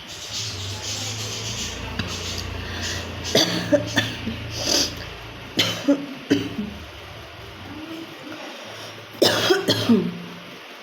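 A woman coughing in short bouts, a few coughs a few seconds in and a quick cluster near the end. This is a real cough from a cold.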